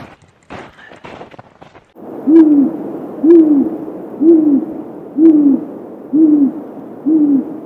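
Great gray owl hooting: six deep, evenly spaced hoots about one a second, each briefly rising and falling in pitch, over a steady hiss, starting about two seconds in. It is calling for its mate.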